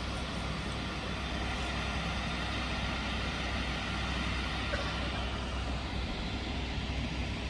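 Sangi Railway Hokusei Line narrow-gauge electric train running, a steady low rumble under an even hiss.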